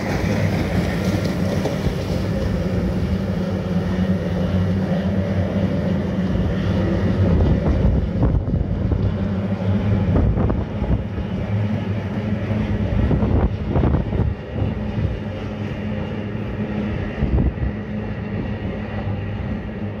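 Kyotei racing boats' two-stroke outboard engines droning at speed, the drone steadiest in the first half. Strong wind buffets and crackles on the microphone throughout.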